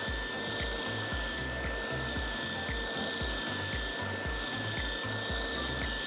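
Spindle sander running steadily, its sanding drum grinding against the end of a steel threaded rod held to it by hand. Background music with a steady beat runs underneath.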